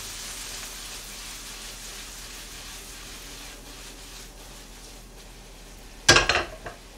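Japchae (glass noodles, onion and cabbage) sizzling in a wok as it is tossed over the gas flame, a steady hiss slowly dying down. About six seconds in, a single loud metal clang as the wok is set back on the burner grate.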